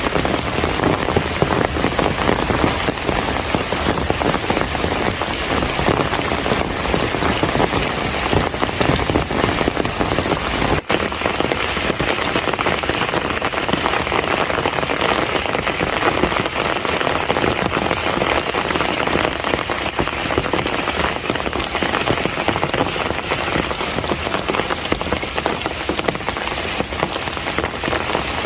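Heavy summer monsoon rain falling steadily, a dense patter of drops on surfaces. About a third of the way in it breaks off for an instant, then carries on a little brighter and thinner in the low end.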